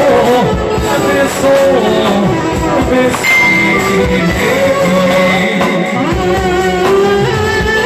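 Clarinet playing an ornamented Albanian folk melody with bending slides in pitch, over live band accompaniment.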